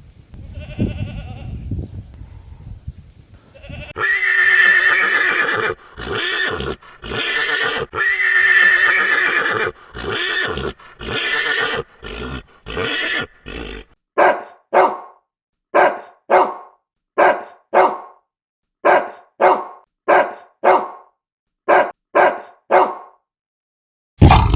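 Zebra calling: long, loud whinnying brays, then a steady run of short, sharp barking calls, about one and a half a second. A different loud sound cuts in right at the end.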